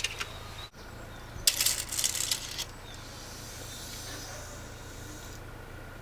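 Stanley Tylon tape measure being handled: a short click at the start, then a burst of sharp metallic clicking and rattling about a second and a half in, lasting about a second.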